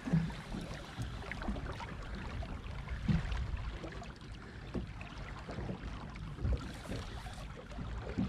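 Ambient noise on a small fishing boat at sea: a steady low rumble of wind and water against the hull, with occasional short knocks.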